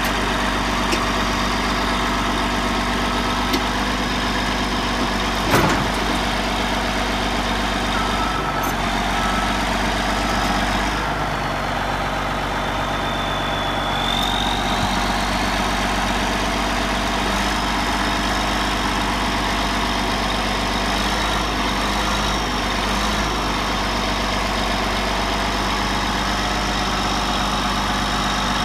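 Caterpillar D8T bulldozer's C15 diesel engine running steadily at low revs. A single sharp knock comes about five and a half seconds in, and a brief high whine rises about halfway through.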